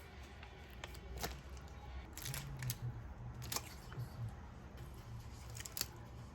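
A handful of short, sharp clicks and snips spaced irregularly, over a low steady hum.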